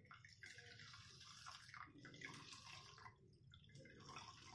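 Faint trickle and drip of whey running out of a squeezed cloth bundle of fresh chhana curds into a metal mesh strainer.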